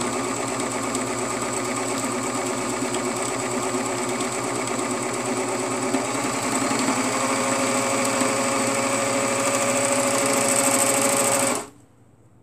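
Serger (overlock machine) running steadily, stitching a seam through shirt fabric. It grows a little louder in the second half, then stops suddenly near the end.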